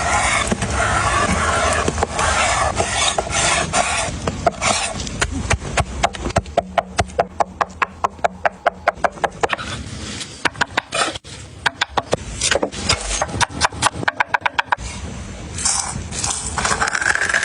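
Cleaver knife chopping on a wooden cutting board: long runs of quick, even strokes, about four or five a second. It opens with a steady rough hiss for the first few seconds, and a short rising whine comes near the end.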